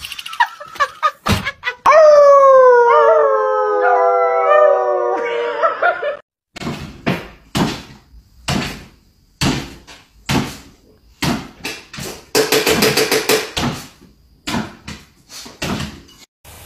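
A dog howls once for about four seconds, a long wavering note that slowly falls in pitch, after a few knocks. Then comes a string of short thumps, roughly one a second, with a quick run of clicks in the middle, as a small white dog hops on its hind legs on a wooden floor.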